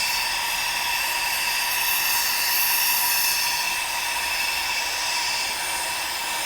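Lit gas soldering torch hissing steadily while its flame heats a pipe joint, the flame worked evenly around the fitting before the solder is fed in.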